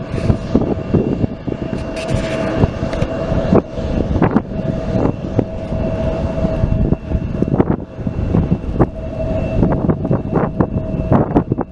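Jet aircraft engines running with a loud rumble and a steady whine, under many irregular knocks that sound like wind buffeting the microphone.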